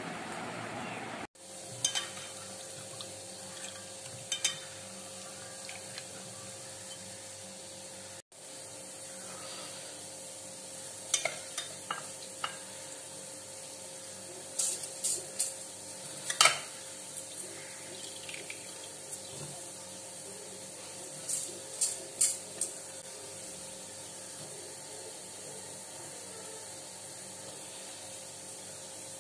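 Soaked rice and chickpeas being handled in metal pots: scattered light clinks and wet scrapes in short clusters, over a steady low hum.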